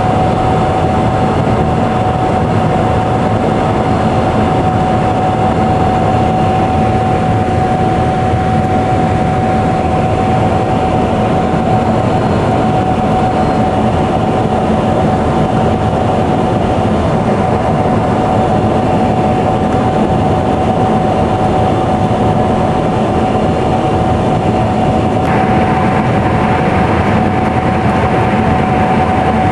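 Gleaner S77 combine running steadily while cutting wheat: a constant machinery noise with a steady high whine over it, the upper part of the noise growing a little stronger near the end.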